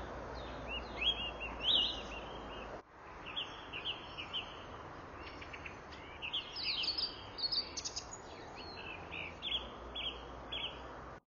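Several small birds chirping and singing over a steady outdoor background noise. The sound dips briefly about three seconds in and cuts off suddenly at the very end.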